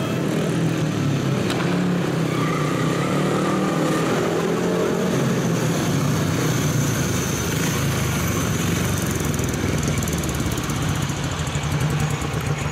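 Single-cylinder speedway motorcycle engine running steadily, its pitch wavering a little as the throttle is worked.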